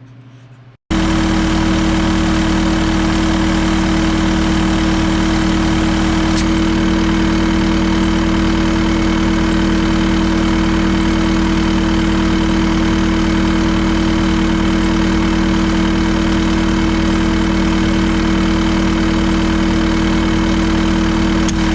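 Caterpillar 259D skid steer's diesel engine running at a steady idle, cutting in suddenly about a second in, while the AC system is being charged with refrigerant.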